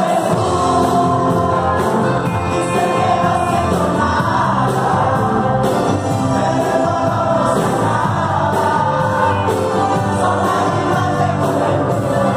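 Male lead singer singing live into a microphone over a live band with bass guitar, congas and drums, heard from the audience.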